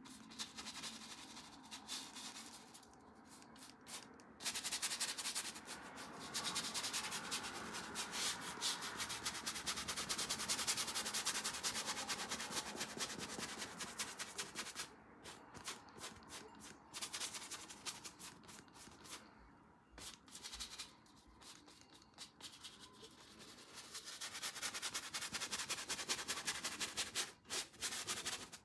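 Bristle paintbrush scrubbing paint onto a stretched canvas in rapid back-and-forth strokes, in long spells with short pauses between.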